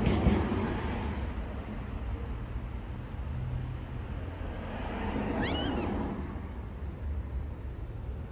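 A cat meows once, a short call that rises and falls in pitch, about five seconds in. Right at the start a sudden short burst is the loudest sound, and a steady low rumble runs underneath.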